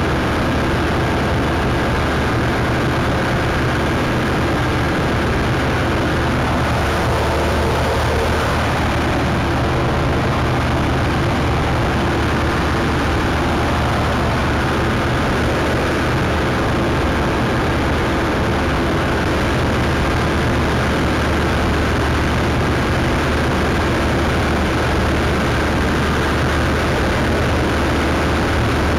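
Combine harvester running steadily while cutting standing grain: an unbroken drone of engine and machinery with a steady low hum.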